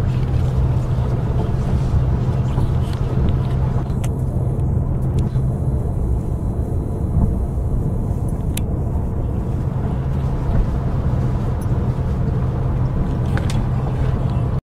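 Steady low rumble and hum of a car driving, heard from inside the cabin, with a few faint clicks; the sound cuts off abruptly at the very end.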